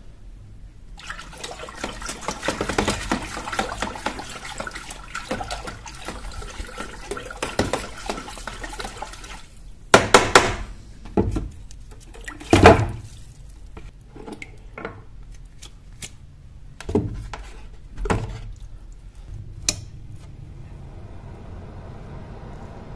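Water running from a tap for about eight seconds, starting about a second in, then stopping. It is followed by several loud, sharp knocks spread over the next ten seconds.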